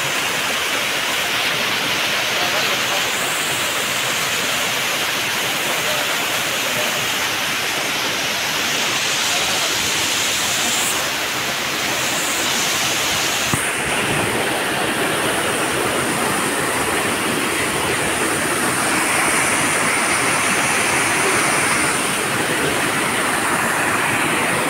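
Waterfall water rushing in a steady, loud hiss. Just past halfway the sound shifts suddenly and a thin, high, steady tone joins it.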